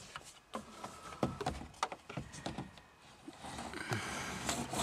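Handling noise as a flashlight is moved about behind a car dashboard: scattered light clicks and knocks, then a rustling, rubbing sound in the last second or so.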